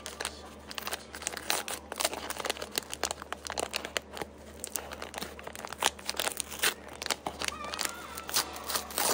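Brown paper bag crinkling and rustling as hands work it open, an irregular run of sharp crackles.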